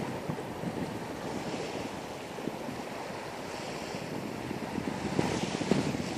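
Wind buffeting the microphone outdoors: a steady rushing noise with crackly low gusts, swelling a little near the end.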